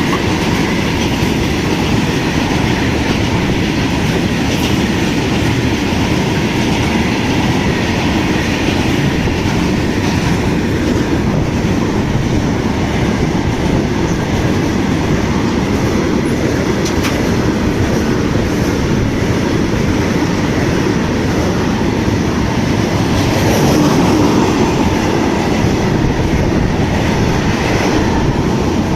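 Indian Railways express train passing at high speed: a loud, steady rumble of the coaches' wheels running on the rails, swelling slightly near the end.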